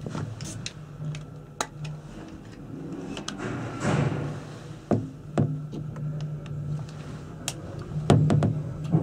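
Ride noise inside a Panoramic Mont Blanc gondola cabin running along its cable: a steady low hum with scattered knocks and rattles of the cabin, and a brief rush of noise about four seconds in.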